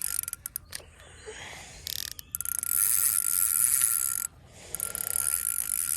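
Spinning reel's drag buzzing as a hooked fish pulls line off against it, in two long runs with a brief break near the middle, after a few scattered clicks.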